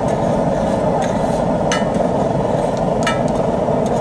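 Metal spatula scraping and clinking on a large flat griddle as egg bhurji is stirred and spread, with a few sharp metal strikes, about three, over a steady low din.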